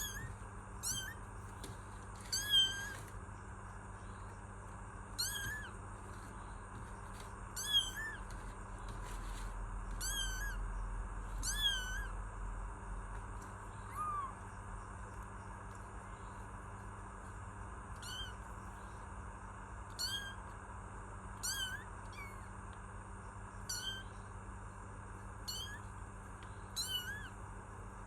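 Kitten meowing repeatedly: short, high-pitched meows that rise and fall in pitch, about one every two seconds.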